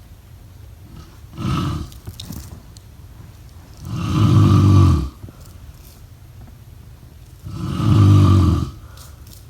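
Snoring: three snores, a short one about one and a half seconds in, then two longer ones of about a second each, around four and eight seconds in.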